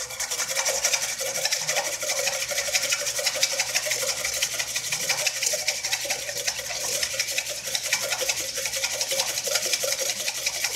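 Wire balloon whisk beating egg yolks and mustard in a stainless steel bowl: a rapid, steady scraping of the wires against the metal. The yolks are being whisked to a foamy ribbon stage before oil goes in for mayonnaise.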